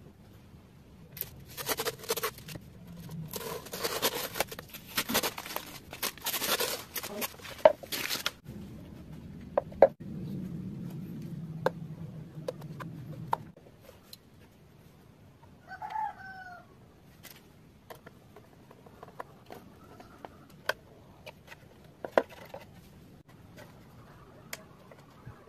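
Rustling, scraping and sharp clicks of plastic parts being handled and fitted together on a homemade PVC RC boat, loudest and busiest in the first eight seconds, with single clicks after that. A low hum runs for a few seconds in the middle, and a brief chicken call sounds about two-thirds of the way in.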